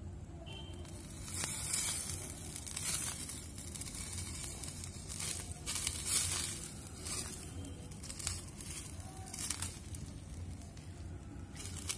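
Basting fat dripping from skewered chicken onto hot charcoal, sizzling and crackling in several sudden bursts, the strongest about two and six seconds in.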